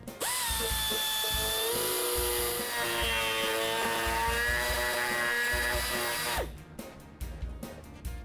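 Small high-speed power tool whining as it cuts into the plastic of a taillight housing bracket. It runs for about six seconds, changes tone about two seconds in, then stops.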